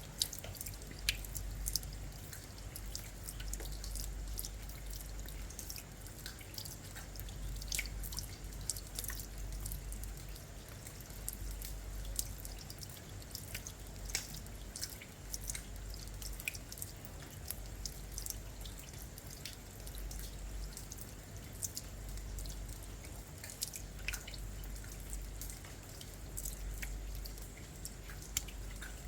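Rain falling steadily, with many separate drips and drops ticking irregularly over a soft hiss, and a low uneven rumble underneath.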